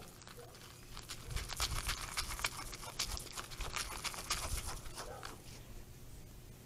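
Deer feeding from a plastic tub right at the microphone, crunching dried mealworms and knocking the tub with its muzzle: a dense run of crisp crunches and clicks with dull thumps that starts about a second in and stops a little after five seconds.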